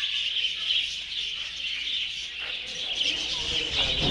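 Many small birds chirping and chattering together in a constant high-pitched twittering.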